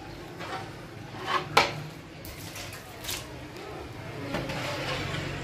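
Kitchen utensil knocking against an aluminium pot: two sharp knocks about a second and a half in, the second the loudest, and a lighter knock near three seconds, followed by a soft steady hiss.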